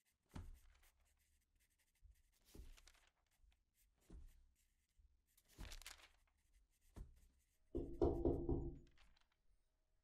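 Soft, scattered thunks and knocks about every one and a half seconds, then a louder, denser burst of handling noise about eight seconds in.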